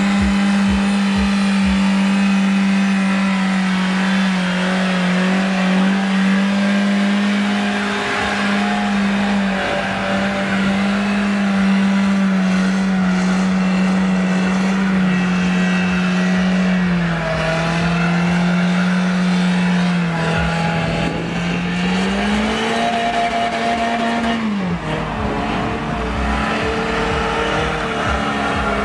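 Car doing a burnout: the engine is held at high revs at a steady pitch while the spinning rear tyres squeal. The revs sag around the middle, climb once more and then drop away near the end.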